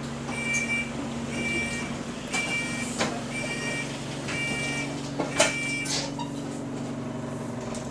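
Bus engine idling with a steady low hum, heard from inside the bus, while an electronic warning tone beeps about once a second, six times. A few knocks and rattles fall in the middle.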